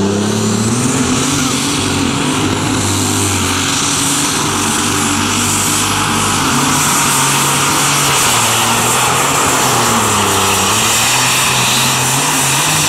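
Pulling tractor's engine at full throttle dragging a weight-transfer sled down a dirt track, a loud, steady, high-revving note. Its pitch sags briefly about ten seconds in, then picks up again.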